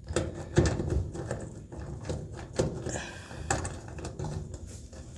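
Irregular light clicks and knocks of hands working at a dryer's power-cord terminal block, taking apart the connection of a 4-wire cord.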